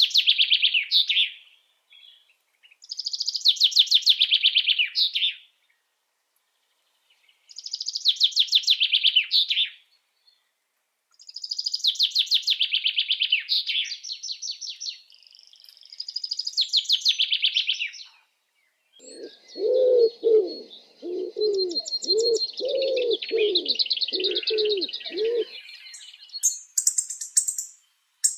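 Birdsong: a songbird repeats a rapid trill that falls in pitch, each phrase lasting two to three seconds, five or six times. About two-thirds of the way in, a dove gives a run of about nine low, evenly spaced coos under a steady high thin note. Short high chirps come near the end.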